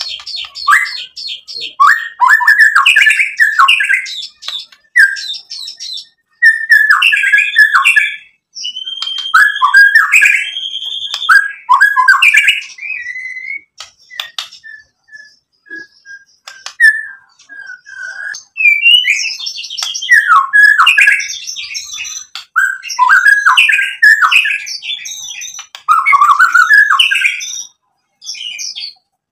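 White-rumped shama in loud, full song: a long run of varied phrases of clear whistles, rapid chattering trills and dry clicking notes, broken by short pauses. About halfway through it gives a slow series of evenly spaced single notes, falling slightly in pitch, before breaking into fast phrases again.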